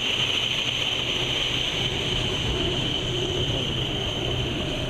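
Large car ferry passing close alongside a small boat: a steady engine drone with the rush of its bow wave and wake.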